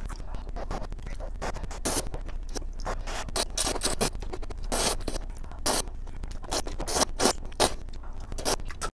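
Close-miked slurping and chewing of ramyeon noodles: an irregular run of short slurps and mouth noises.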